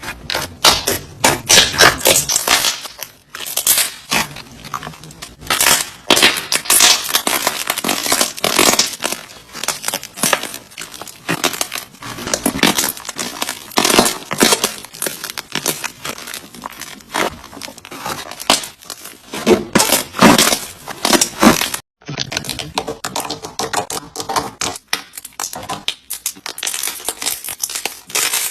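Slime being squeezed and worked by hand, giving dense crackling and popping clicks that come in bursts. A brief break about two-thirds of the way through is followed by sparser clicks.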